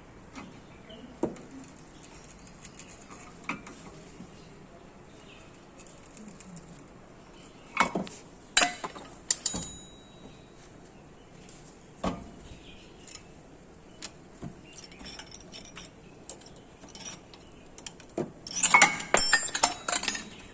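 Metal tools and parts clinking and knocking as they are handled: scattered single knocks, a louder group about eight seconds in, and a dense run of clinking near the end.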